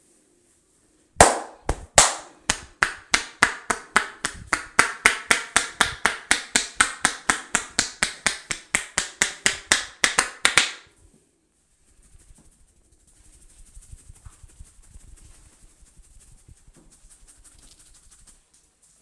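Hands striking a head in rapid percussive head-massage strokes, about four to five strikes a second for about ten seconds, then stopping abruptly. Faint rubbing of hands on hair follows.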